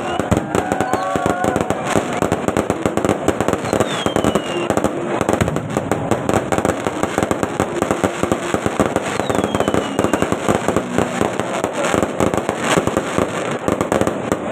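Fireworks display: a dense, continuous crackle of bursts and bangs, with a short falling whistle twice.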